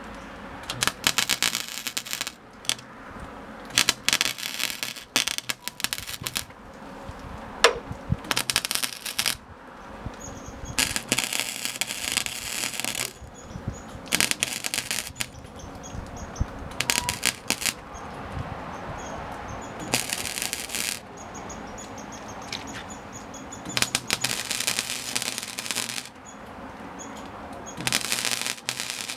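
MIG welder crackling in short bursts as patches are stitch-welded into a steel truck tailgate. There are about ten welds, each from half a second to two seconds long, with short pauses between them.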